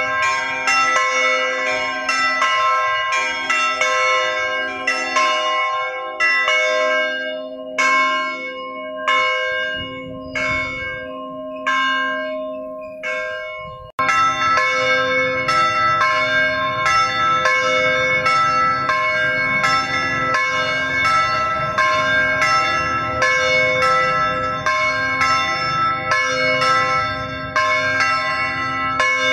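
Church bells pealing: a rapid run of overlapping strikes, each ringing on, that thins out midway and then breaks off abruptly at an edit and resumes more densely.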